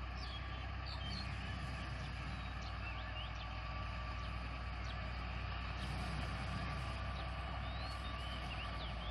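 Distant Caterpillar 140K motor grader's diesel engine running with a steady low drone as the machine travels along the road, with small birds chirping now and then.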